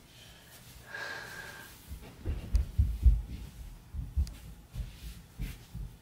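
Irregular soft low thumps and bumps, several a second, starting about two seconds in: a child's footsteps and movements on a wooden floor and yoga mat.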